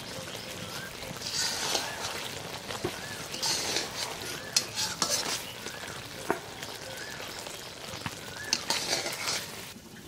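Drumstick pickle simmering and sizzling in thick masala syrup in an iron karahi while a spatula stirs it, scraping along the pan with a few sharp knocks against the metal.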